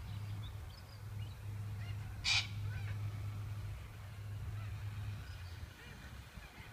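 A cockatoo gives one short screech about two seconds in, with a few faint high chirps around it. A steady low rumble runs underneath and fades out near the end.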